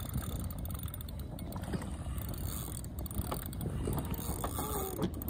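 Fishing reel being cranked, its gears ticking rapidly as line is wound in.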